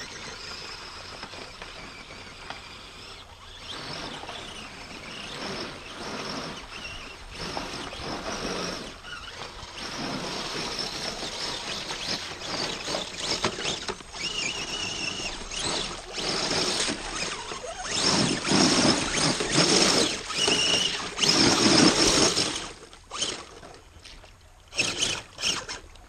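RC crawler truck driving through a shallow rocky river: tyres churning and splashing water over stones, with the electric motor whining in short spells. The sound grows louder in the last third as the truck comes close, then drops off sharply a few seconds before the end.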